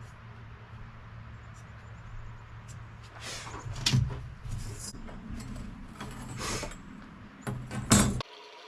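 A steady low machine hum in a workshop, with a few loud metallic clatters and knocks from steel pieces being handled. The sound cuts off abruptly near the end.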